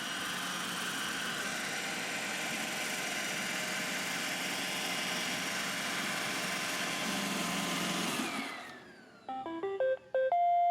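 iRobot Roomba 980 robot vacuum running with a steady hum, winding down with a falling whine about eight and a half seconds in. It then plays a short chime of stepped notes ending on a held tone, its signal that the cleaning job is finished.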